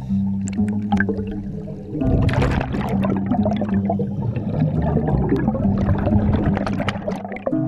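Underwater sound of a scuba diver breathing through a regulator, exhaled air bubbling out past the camera in a rush that is loudest about two seconds in.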